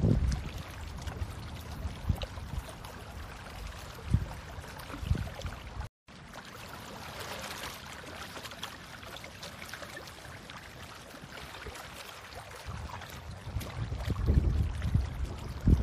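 Hands digging through wet tidal mud for bait worms: wet squelching and water sloshing, with scattered low thumps on the microphone, and heavier low rumble near the end. The sound cuts out briefly about six seconds in.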